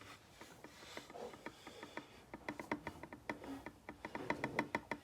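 A run of small, quick clicks and taps, sparse at first, then coming several a second and louder in the second half.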